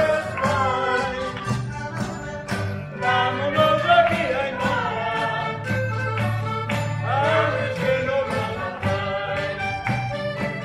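Live folk group performing on an open-air stage: voices singing over guitars, with a steady percussion beat.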